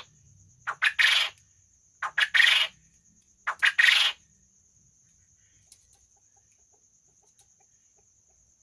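Quail calling three times in quick succession, each call a short note followed by a longer one, about a second and a half apart; it falls silent after about four seconds. A faint steady high tone runs underneath.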